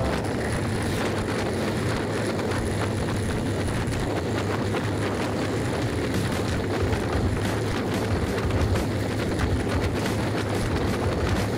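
Steady road-travel noise from riding along a highway: an even engine and tyre rumble with no distinct events.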